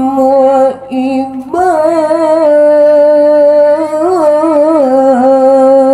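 Qiroat-style Quran recitation: one voice holding a long melodic note, breaking briefly near the start, then sustaining the note with ornamental pitch turns about a second and a half in and again around four seconds. The voice sounds nasal (bindeng) from a heavy flu and cough.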